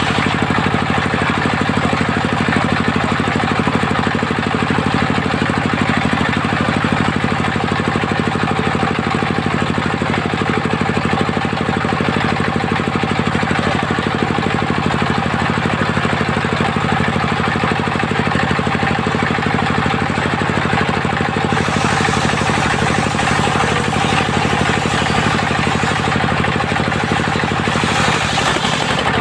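Engine of a portable circular sawmill running steadily at a constant speed. The sound brightens slightly about two-thirds of the way through.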